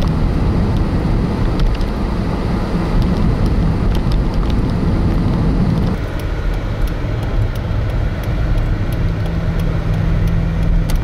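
Car driving: steady engine and road noise. About six seconds in the rushing noise drops, leaving a steadier low engine hum.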